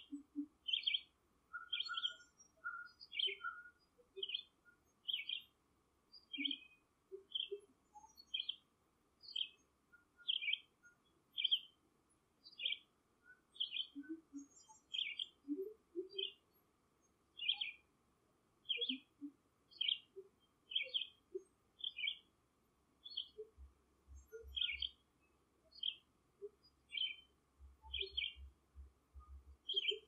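A short, high chirping call repeated steadily about once a second, like a bird's chip note, with fainter short low notes scattered between the chirps.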